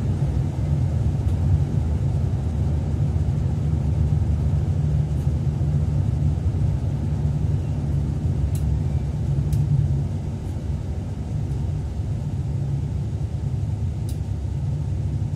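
Electric train running along snowy track, heard inside the driver's cab: a steady low rumble of wheels and running gear, a little quieter from about ten seconds in, with a few faint sharp ticks.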